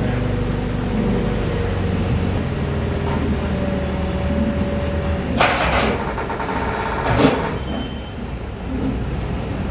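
A heavy vehicle engine running steadily on a construction site, with two short loud knocks a little past halfway through.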